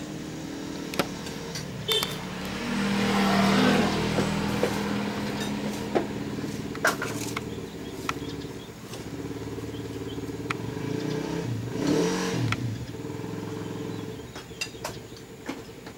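Motor vehicle engines running steadily, swelling twice as vehicles pass, with a few sharp clicks scattered through.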